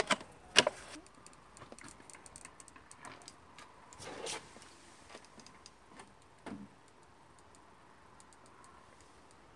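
Hands working a hot glue gun against a plastic bottle: a few sharp clicks in the first second, then scattered faint ticks and handling noises, with a brief louder scrape about four seconds in and a knock at about six and a half seconds.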